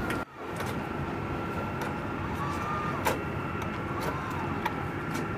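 Steady mechanical hum with a constant high-pitched whine, dropping out abruptly for a moment about a quarter-second in, with a couple of faint clicks later on.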